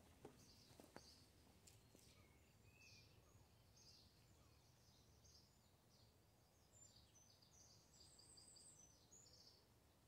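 Near silence with faint birds chirping, short high chirps throughout and a quick run of them near the end; a few faint clicks in the first two seconds.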